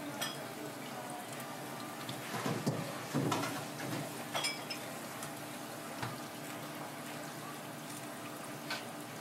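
Water running into a steel sink, with scattered clicks and wet handling noises as kitchen shears cut along a sea snake's body on a cutting board, the busiest stretch about a third of the way in.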